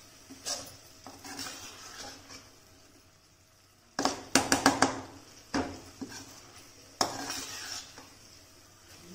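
Metal spatula scraping and clinking against a metal kadhai while stirring peas in thick masala. It comes in uneven bursts, the loudest a quick run of scrapes and clinks about four seconds in, with a sharp knock near seven seconds.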